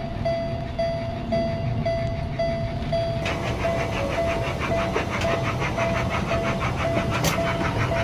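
Electronic warning bell of a miniature railway crossing ringing, about two dings a second. From about three seconds in, a fast rattling clatter joins it as the small train passes over the crossing.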